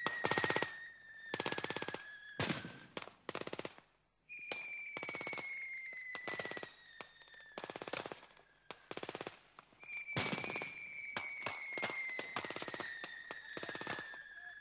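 Repeated short bursts of automatic gunfire. Each burst is a quick rattle of shots. Under them, a high whistling tone slides slowly downward and comes back three times.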